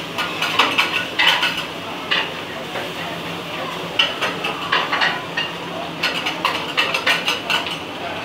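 Metal spatula scraping and clattering on a flat-top griddle as food is worked, in irregular clusters of sharp clicks and scrapes over a steady kitchen hiss.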